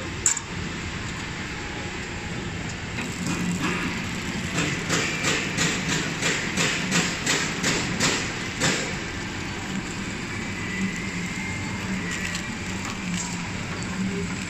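Pillow-pouch flow wrapping machine running as it wraps soap bars in film, with steady mechanical noise. There is a sharp click just after the start, and in the middle a rhythmic clatter at about three strokes a second lasts several seconds before settling back to a steadier hum.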